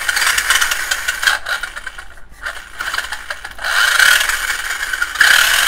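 Tamiya Stadium Thunder RC truck's stock Tamiya 540 brushed motor and enclosed gearbox running under throttle on a bench test, a high whine with gear chatter. The throttle eases off about a second and a half in, comes back in about three and a half seconds in, and it runs louder again near the end.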